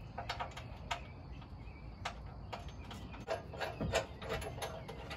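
Scattered light metallic clicks and knocks, some briefly ringing, from the new chrome rear bumper and its brackets and bolts being fitted to the car, most frequent in the second half.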